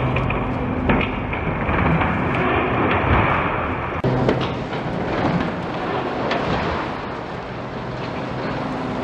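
Cat 390F excavator's Cat C18 diesel engine running under load while its hydraulic demolition jaw crunches and breaks reinforced concrete. Rubble rumbles and crashes down throughout, with several sharp cracks.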